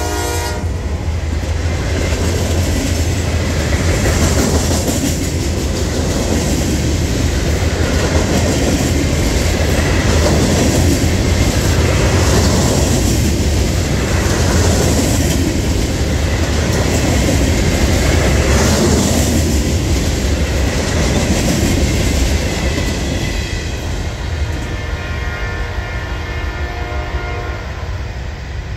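Freight cars of a rocket booster train rolling past close by: a steady rumble and clatter of steel wheels on the rails, swelling and easing as each car goes by, then fading as the end of the train passes. A train horn sounds faintly in the distance near the end.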